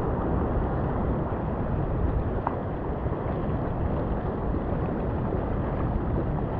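Steady rush of sea waves washing on a beach, with wind rumbling on the microphone.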